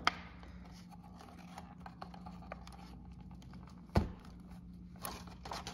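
Faint handling noises of fingers pressing a plastic clip and cord into an aluminum mini blind's bottom rail: small scattered clicks, with one sharp click about four seconds in, over a low steady hum.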